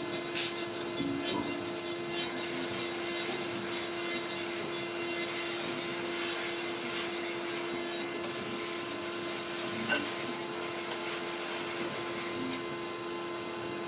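A hand rubbing back and forth along the edge of a hardwood frame, a steady scratchy wood-rubbing sound over a constant hum. A sharp knock comes near the start and another about ten seconds in.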